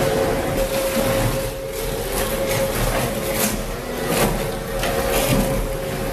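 A crushing machine running with a steady hum, with several sharp cracks and crunches as material breaks.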